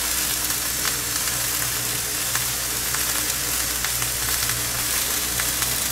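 Garlic fillet and potato skewers sizzling on an electric tabletop grill: a steady frying hiss with faint crackles, over the steady low hum of a ventilation fan.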